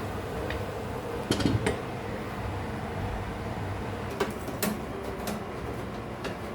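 A few light clicks and knocks, a cluster of them about a second in and a few single ones later, over a steady low hum.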